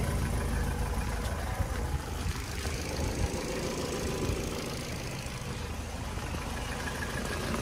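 Ford Focus Mk3 1.6 petrol four-cylinder engine idling steadily with a diesel-like clatter, a tappet tick that the owner has been told may be the valve lifters.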